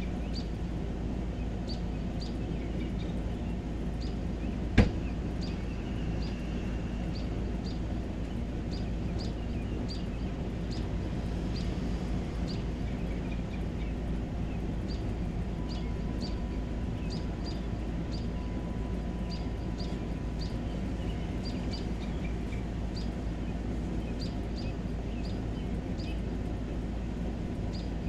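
Outdoor evening ambience: a steady low background noise with short, high chirps repeating every half second to a second, from small night creatures. One sharp click about five seconds in.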